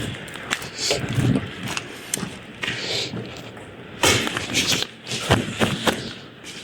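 Footsteps with scattered knocks, scrapes and rustling: a person moving about and handling debris.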